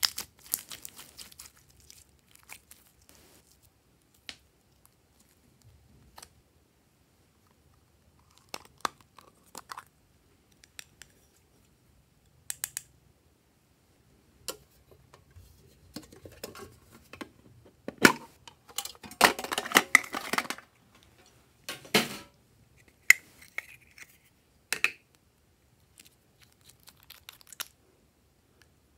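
Slime squeezed and worked by hand, with small plastic pieces picked up: scattered sticky clicks and crackles, thickest in a run of dense crackling about two-thirds of the way through.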